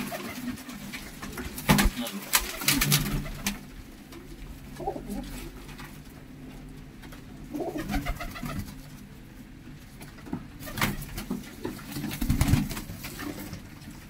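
A flock of domestic pigeons cooing steadily, with a few sharp wing flaps and flutters breaking in now and then.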